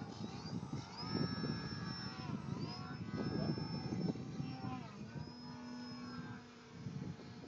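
Radio-controlled model Sukhoi aerobatic plane flying low overhead, its motor whining high, the pitch dipping and rising several times as it manoeuvres. The sound fades toward the end.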